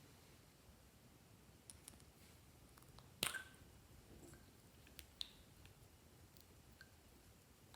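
Slime being handled, making a few faint, scattered clicks and small pops against near silence, the sharpest about three seconds in.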